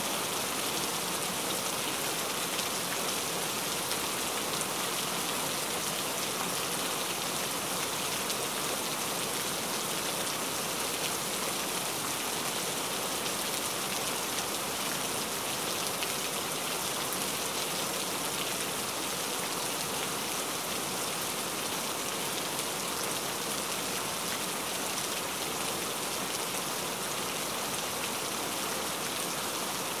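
Steady rain falling in a forest: an even, unbroken hiss of many small drops that neither builds nor fades.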